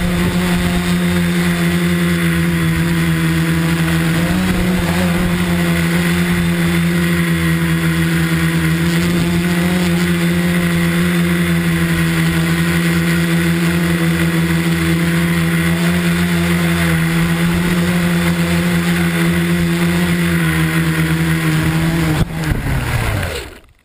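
Tricopter's electric motors and propellers running with a steady, loud hum, heard from the GoPro mounted on the craft. Near the end there is a short knock as it sets down, and the motors spin down and stop.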